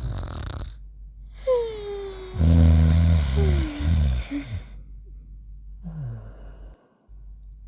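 Cartoon snoring sound effects: a whistling exhale falling in pitch, then a loud, low, pitched snore that slides downward. Short gaps separate the pieces.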